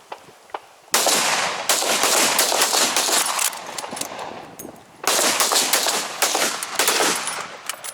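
Two rifle shots from a Blaser R93 in 9.3x62, about four seconds apart, each followed by a long rolling echo with fainter sharp cracks inside it.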